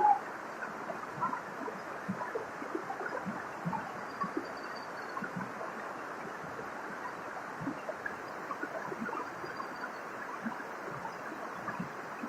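Waterfall splashing and gurgling steadily, with many small splashes in the rush of water.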